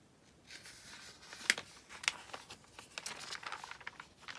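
Glossy magazine pages being turned and handled, a paper rustle with sharp crinkles, the loudest about a second and a half in.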